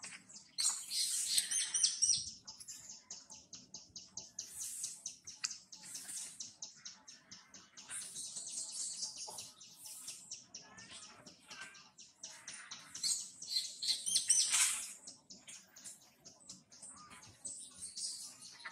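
Wild birds chirping in repeated high bursts over a fast, even, high-pitched pulsing trill.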